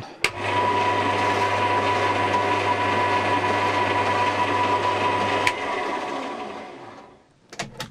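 Burgess BBS-20 Mk II bandsaw switched on with a click and running with no load: its electric motor hums steadily, with a high whine over it. About five and a half seconds in, the switch clicks off and the saw runs down to a stop over about a second and a half.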